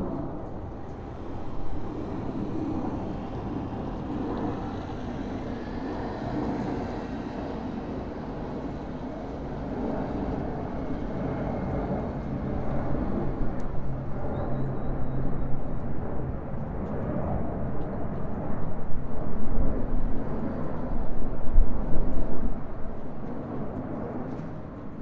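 Plane flying overhead: a low, rough rumble that grows louder through the second half and eases off just before the end.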